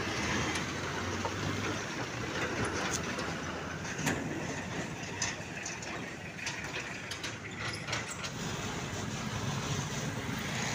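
Diesel engine of a loaded Mitsubishi Fuso cargo truck running as the truck rolls slowly past on a rough road, a steady deep rumble with scattered knocks and rattles.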